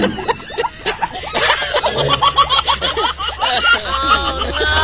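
Laughter: snickering and chuckling.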